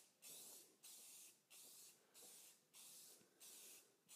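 Aerosol spray can of gloss clear coat hissing in about seven short bursts, each about half a second with brief gaps, as a heavier coat is laid onto a painted fender.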